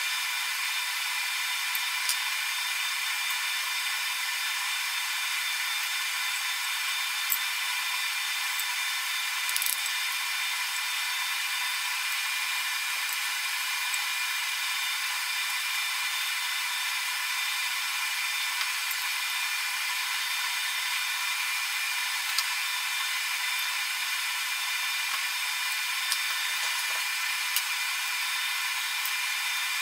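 A steady high-pitched whine and hiss, like a small machine running, with a few faint sharp metal clicks as the parts of a hand plane are fitted together.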